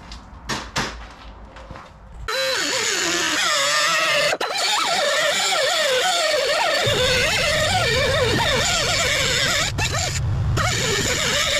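Angle grinder with a cut-off disc cutting through a metal torque converter back plate. It starts about two seconds in after a few handling clicks, then runs loud and continuous with a whine that wavers in pitch as the disc bears into the metal.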